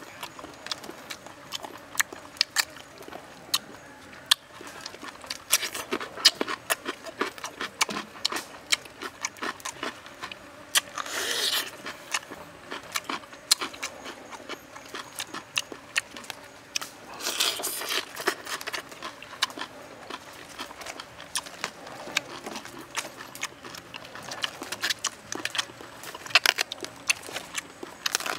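Close-up mukbang eating sounds as grilled octopus is chewed: many sharp wet mouth clicks and smacks, with two longer hissing sounds about eleven and seventeen seconds in.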